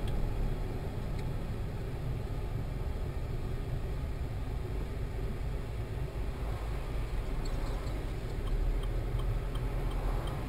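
Steady low rumble of a car's engine and road noise, heard from inside the cabin while driving slowly. A faint, regular ticking comes in during the last few seconds.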